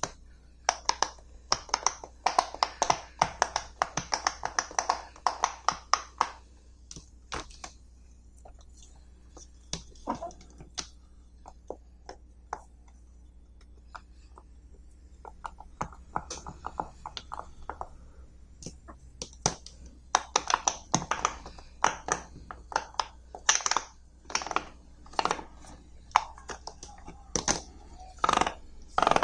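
Silicone pop-it fidget toy bubbles pressed in by fingers, giving quick runs of small pops. The pops come thick and fast for the first few seconds and again through the last ten seconds, with only scattered single pops in between.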